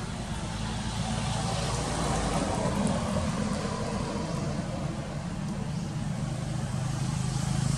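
Steady engine rumble with a hiss over it, like motor traffic, growing louder near the end.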